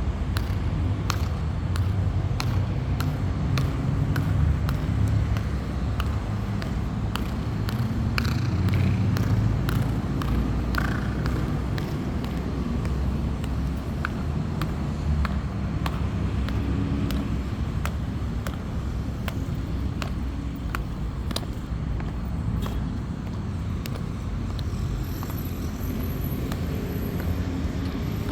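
Metal-tipped high heels clicking sharply on a hard floor in a steady walk, about two steps a second, with an echo. A steady low rumble like distant traffic runs underneath.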